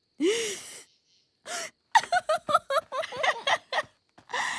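A girl's wordless voice sounds: a short pitched 'hm' about a quarter second in, then a quick run of short pitched syllables, and a breathy exhale near the end.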